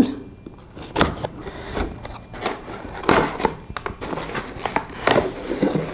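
Cardboard product box being opened and unpacked by hand: irregular scraping, rustling and light knocks of cardboard and paper wrapping as the inner tray is slid out.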